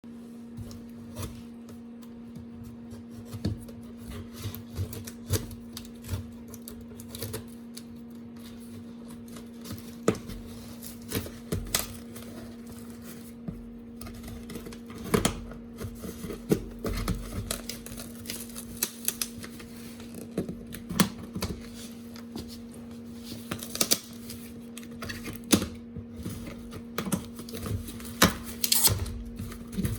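Hands opening and handling a Pokémon TCG box and its packaging: irregular clicks, taps and rustles of cardboard and plastic, busier in the second half, over a steady low hum.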